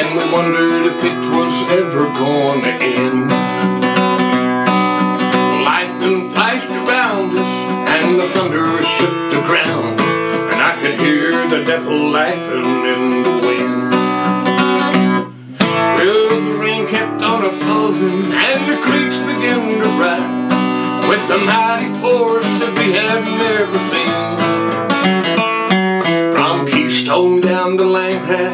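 Acoustic guitar music, busy plucked and strummed notes, breaking off for an instant about halfway through.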